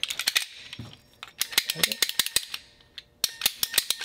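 Clicking and clattering of small plastic plumbing parts, a pump strainer and PEX fittings, being picked up and handled on a hard work surface, in three quick clusters of clicks.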